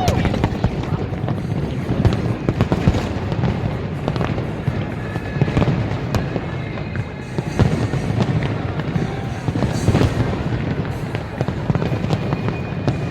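Aerial fireworks display, a continuous barrage of sharp bangs and crackles over a steady low rumble of booms.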